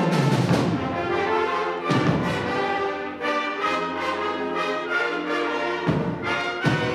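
Concert band playing held wind and brass chords, punctuated by sharp percussion accents near the start, about two seconds in, and twice near the end.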